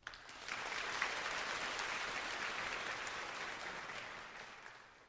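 Audience applause: a dense patter of clapping that starts suddenly and fades out near the end.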